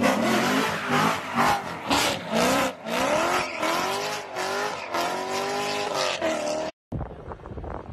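Chevrolet C7 Corvette's V8 revving hard again and again, its pitch rising and falling, with tyre squeal as the car slides out onto the road. The sound cuts off suddenly near the end.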